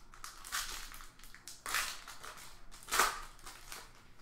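Foil trading-card pack wrapper crinkling and tearing as it is opened by hand, in a few sharp crackly bursts, the loudest about three seconds in.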